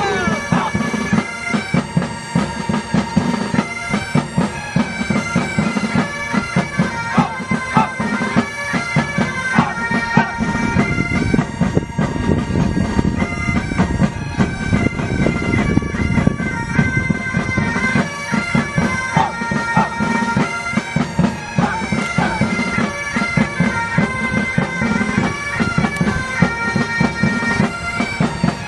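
Military pipe band playing: bagpipes carry a tune over their steady drones, with drums keeping a continuous beat underneath.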